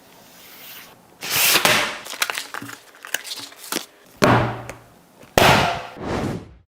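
Tablet packaging being handled and opened: rustling, crinkling swishes with scattered sharp clicks, in loud bursts about a second in, at about four seconds, and again near the end.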